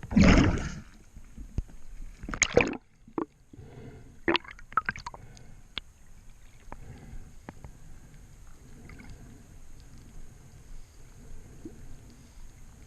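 Water rushing and gurgling close to the microphone, with a loud rush at the start and a shorter one about two and a half seconds in. Scattered sharp clicks follow, then a low steady wash of water.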